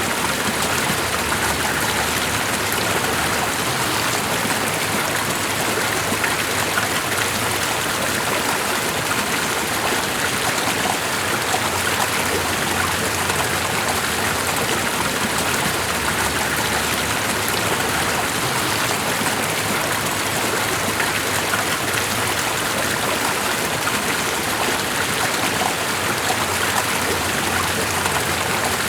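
Steady rush of running water, with a fine patter of drops through it and no change in level.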